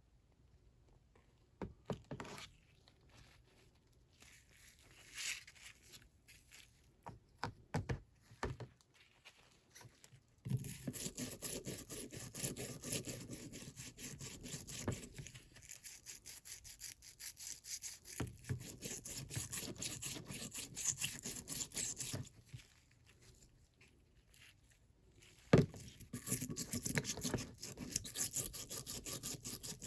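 Rapid back-and-forth hand scrubbing on a rusty steel Snap-on T-handle, in two long runs, after some scattered knocks and clicks of the tool being handled.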